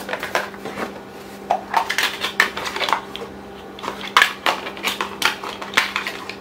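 Hard eyeglass cases clattering and clicking as they are handled in and out of a cloth bag and snapped open: a string of irregular knocks and snaps over a low steady hum.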